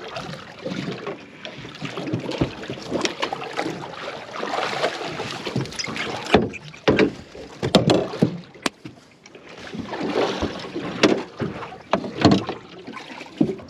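Water washing against a small aluminium fishing boat, with a run of sharp knocks around the middle and two more near the end.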